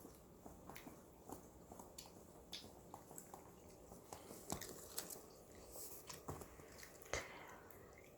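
Toddler chewing cheese: faint, irregular mouth clicks and wet smacks.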